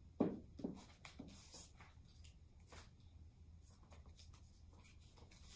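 Faint paper-crafting sounds: a few soft taps and rubs in the first second as cut paper is pressed down onto a tabletop, then light scratching and rustling of glue sticks being rubbed across paper.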